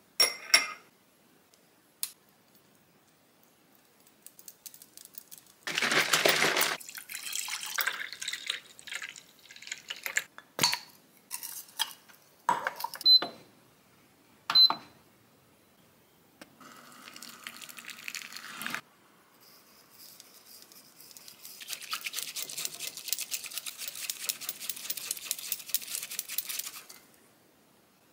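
Kitchen sounds of making a matcha latte: a burst of pouring liquid, scattered knocks and two light clinks of a cup, a brief steady hum about halfway, then several seconds of rapid, fine, even strokes near the end.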